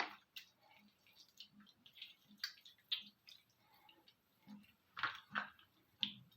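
Faint, irregular wet squelches and small clicks of raw chicken thighs being rubbed and turned by hand with dry seasoning.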